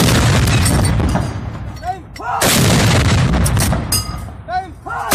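Heavy artillery-type blasts, one about every two and a half seconds, each followed by a long rumbling decay. A short tone rising and falling in pitch comes just before each blast.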